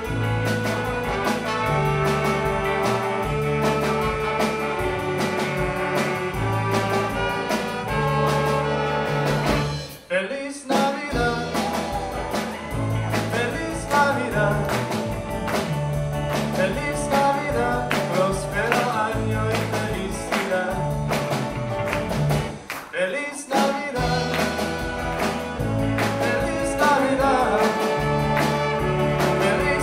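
Live rockabilly big band playing: upright bass stepping through a bass line under drums, electric guitars and a trumpet and saxophone section, with a male lead singer. The band stops short for a moment twice, about ten seconds in and again a little past twenty seconds.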